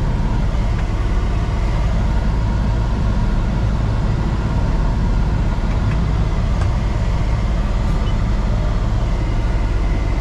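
Peterbilt 389 semi truck's diesel engine running steadily, heard from inside the cab, with a few faint ticks.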